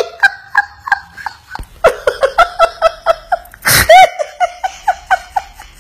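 A woman laughing hard in a fast run of short high 'ha' bursts, about four a second, broken by a sharp gasping intake of breath about two-thirds of the way through.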